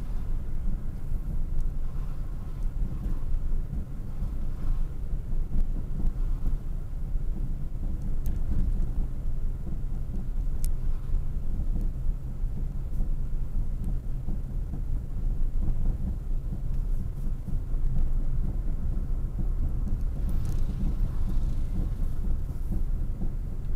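Steady low rumble of a car driving along a road, its engine and tyre noise heard from inside the cabin.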